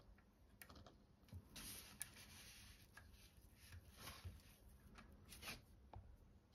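Near silence with a few faint rubs and a couple of light clicks as hands handle and turn a LEGO brick model.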